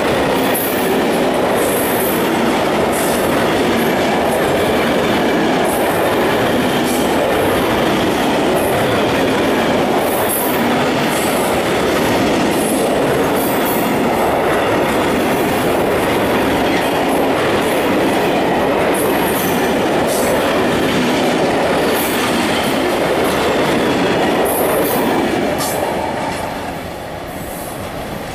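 Freight train of covered hopper wagons rolling past close by: a loud, steady rumble of steel wheels on rail with repeated clicks as the wheelsets cross rail joints. It fades near the end as the last wagon passes and draws away.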